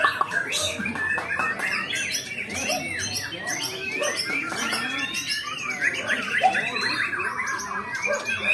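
White-rumped shama (murai batu) singing a dense, varied song of whistled glides and sharp chattering notes without a break.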